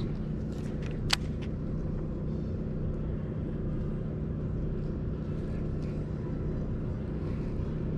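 Steady low rumble and hum of urban background noise, with one sharp click about a second in.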